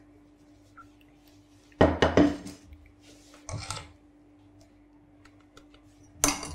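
Stainless steel saucepan, sieve and spatula knocking and scraping against a metal bowl while chocolate ice-cream base is strained. A loud cluster of clatter comes about two seconds in, a shorter one about a second and a half later, and another starts near the end.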